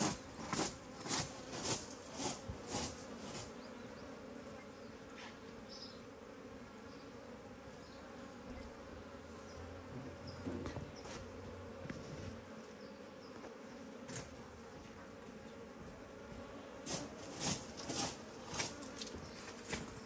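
Honeybees buzzing steadily around an opened hive, a continuous low hum. A run of short sharp taps or knocks comes in the first few seconds and again near the end.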